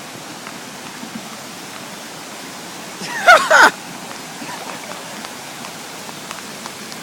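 Steady hiss of rain and rushing floodwater. About three seconds in, a person gives two short, loud exclamations with falling pitch.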